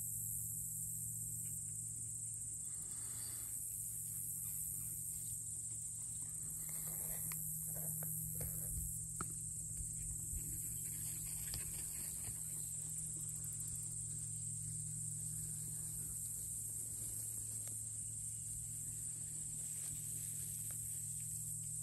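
Steady high insect chorus over a sunny grass pasture, with a steady low hum beneath it. A few faint rustles and ticks come between about seven and twelve seconds in.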